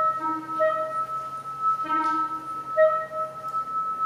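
Improvised live music: a clarinet plays short detached notes, each about half a second, over a high electronic tone that holds steady throughout, with a faint low hum beneath.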